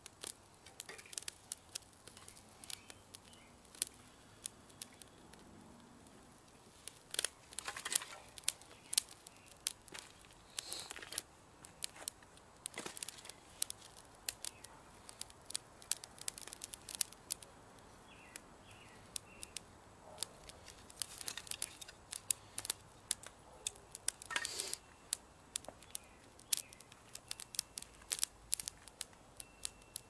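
Dry grass tinder and pine kindling crackling and snapping in a metal fire pit as they catch and smoulder, with irregular sharp pops and a few longer rustling bursts.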